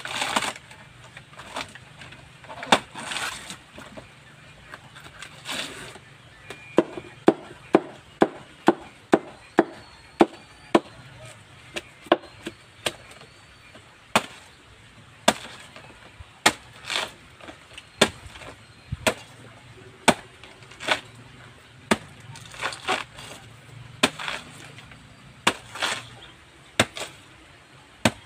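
Machete chopping a banana trunk into slices: a steady series of sharp, wet-sounding chops, about one to two a second.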